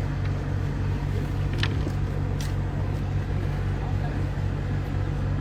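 Steady low mechanical hum or rumble, with a few brief clicks.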